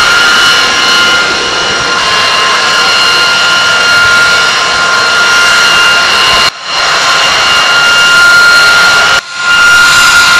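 Jet turbine engine running steadily: a loud rushing roar with a high, steady whine over it. The sound briefly drops out twice, about six and a half and nine seconds in.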